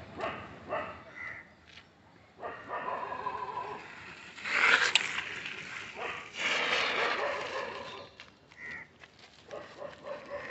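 A dog barking several times, loudest about halfway through.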